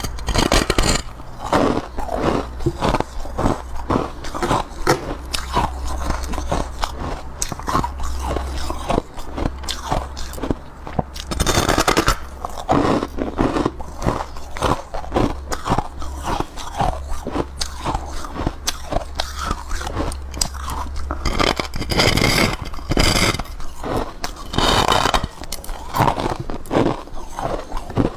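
A person biting and chewing a large chunk of soft white ice close to the microphone: dense crunching and crackling, with louder crunching bites about a second in, about twelve seconds in, and a few seconds before the end.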